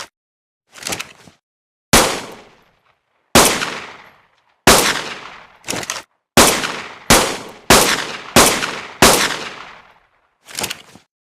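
Pistol gunshot sound effect: about nine sharp single shots, each with a short fading echo, spaced about a second apart and coming quicker in the middle, with quieter clicks before the first shot and after the last.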